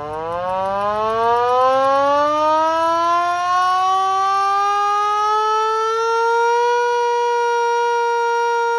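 VXS-2000MTP hand-crank siren being wound up from a standstill: its single tone climbs steadily in pitch as the rotor spins up, loud within the first second or two, then holds steady at top pitch for the last couple of seconds.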